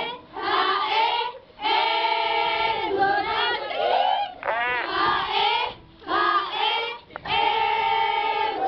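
A group of high school girls singing a song together in unison, in phrases broken by short pauses, with some notes held.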